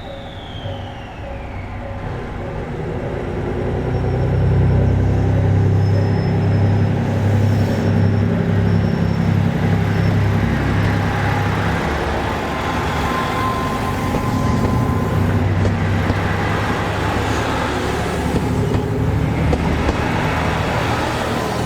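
JR Shikoku 2000 series diesel railcar train passing, its diesel engines droning. The sound swells over the first few seconds and then stays loud with the rush of the train's running.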